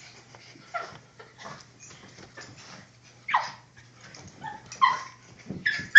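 A Miniature Pinscher and a mixed-breed dog play-fighting: short yips and snarls every second or so, louder about three seconds in and again near five seconds, between the scuffle of paws and fur on the couch blankets.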